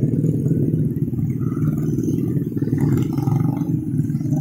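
Motorcycle and car engines running in slow-moving road traffic, with a motorcycle engine idling and pulling away close by as a steady, loud low rumble.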